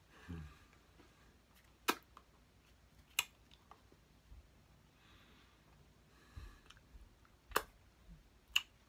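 Quiet room with four sharp taps and slaps from the hands meeting and brushing while signing ASL, spread irregularly across a few seconds.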